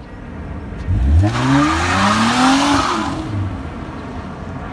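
2003 Nissan Altima revving hard in a front-wheel-drive burnout. From about a second in the revs climb and the front tires screech for about two seconds; the revs fall away and the screech stops a little after the three-second mark.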